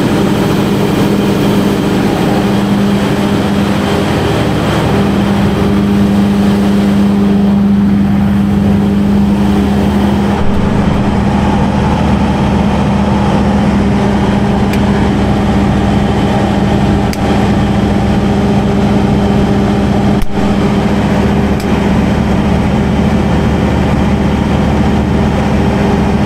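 The diesel engine of a 1500 kVA Perkins generator set, running loud and steady. Its tone shifts slightly about ten seconds in.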